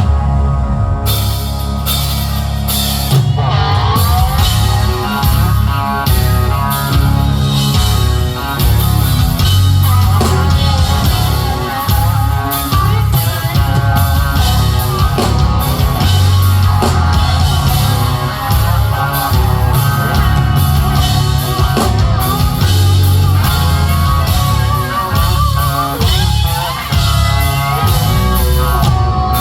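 Rock band playing live with drum kit, bass and electric guitar, a wavering lead line over a steady beat.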